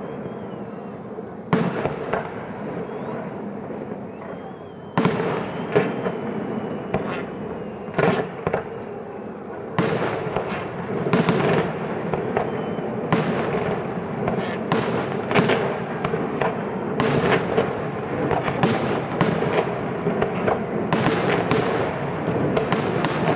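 Fireworks display: aerial shells bursting with sharp bangs and crackle, a few at first and then, from about five seconds in, coming thick and fast.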